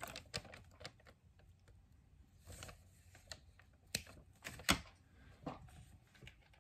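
Scissors snipping and craft tools being handled on a worktable: an irregular scatter of short, sharp clicks and taps, the loudest about two-thirds of the way in.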